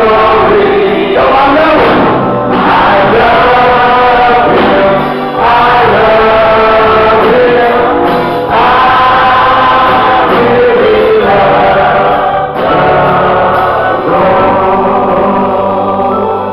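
Gospel choir singing a church hymn in long sustained phrases, with brief breaks between phrases.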